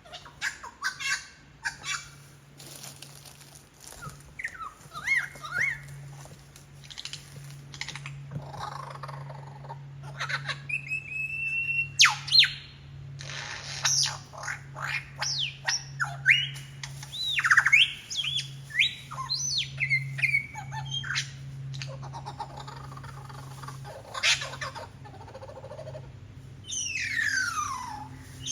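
Superb lyrebird singing a long, varied run of mimicked calls of other birds: whistles, rising and falling glides, and sharp cracks, the loudest crack about twelve seconds in.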